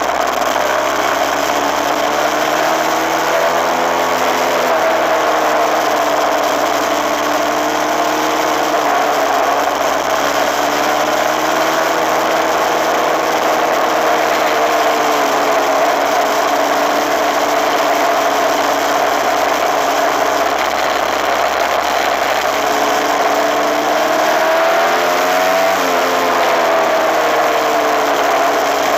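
Suzuki RMX250S's single-cylinder two-stroke engine running as the bike is ridden at steady road speed, its pitch drifting gently up and down with the throttle. Near the end the revs drop briefly and pick up again.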